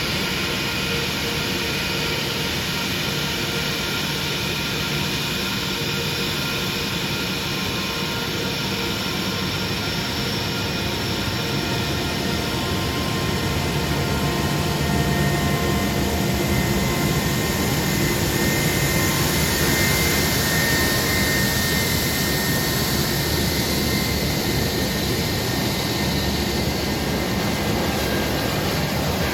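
Jet airliner engines running, a steady rushing noise with a high whine over it that swells a little midway and then eases.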